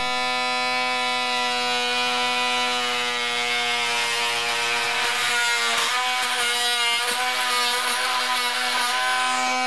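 Ryobi oscillating multi-tool running steadily with a high-pitched buzz as its blade cuts along a marked line in a painted wooden door jamb. The pitch wavers briefly a couple of times past the middle as the blade bites.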